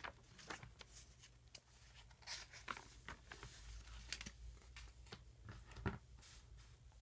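Faint rustling and crinkling of a paper planner's pages as they are flipped and handled, with scattered light clicks.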